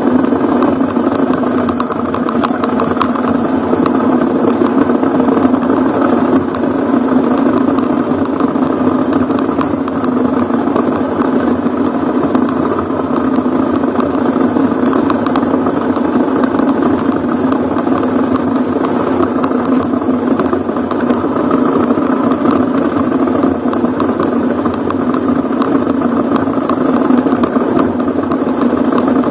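Ducati Hypermotard's V-twin engine running while riding on a dirt road, holding steady revs with no clear rise or fall.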